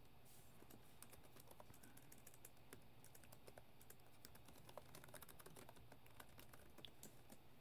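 Faint computer keyboard typing: an uneven run of quick key clicks with short pauses between bursts.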